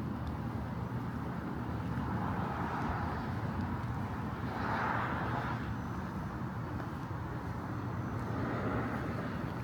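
Distant traffic hum of a suburban street at night, with a vehicle passing and swelling briefly about five seconds in.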